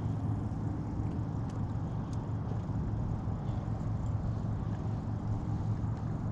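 A boat motor running with a steady low hum.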